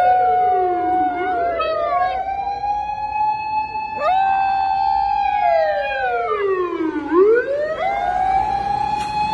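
A siren wailing, holding high then sliding slowly down and back up about twice, with dogs howling along in imitation at other pitches.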